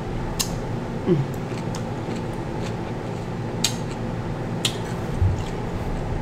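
Close-miked chewing of a crisp cucumber spear: a few sharp, separate crunches over a steady background hum.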